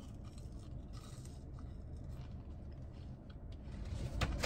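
Faint scraping and rustling of hands handling takeout food and a plastic sauce cup, over a low steady hum inside a car, getting a little louder near the end.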